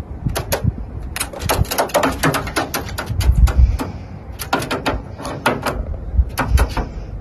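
Quick, irregular sharp taps and clicks in clusters: a hooded crow's beak knocking on a walnut and the ledge it stands on. A low rumble runs underneath.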